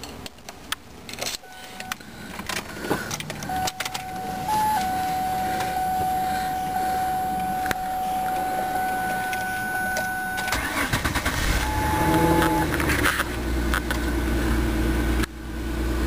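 Ford Taurus V6 engine cranking and catching about two-thirds of the way through, then settling into a steady idle. Before the start there are key clicks at the ignition and a steady high whine lasting several seconds.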